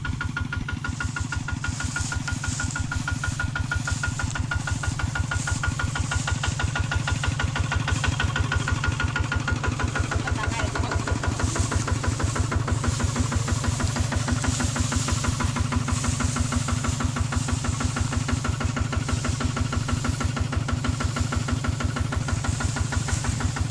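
Single-cylinder diesel engine of a two-wheel walking tractor running steadily with a fast, even putter.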